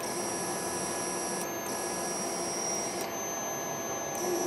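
Stepper motor driven by an old MaxNC closed-loop quadrature control board, energised and being run: a steady electrical buzz with a high whine that switches on and off a few times, in stretches of about a second and a half. The driver does not micro-step.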